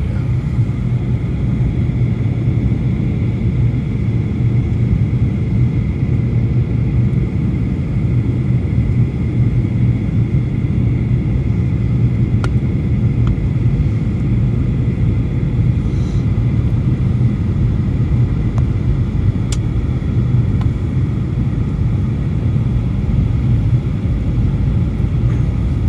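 Steady low drone of a Boeing 737 passenger cabin in flight: engine and airflow noise, with a faint steady high tone above it.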